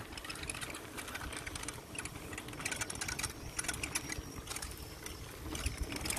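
A folding bicycle being ridden over a rough concrete lane: rapid light clicking and rattling from the bike over a low rumble of tyres and wind.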